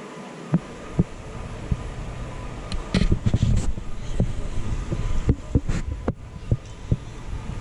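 Footsteps thudding about twice a second on a concrete floor, close to the microphone, over a low rumble. A faint steady hum runs underneath.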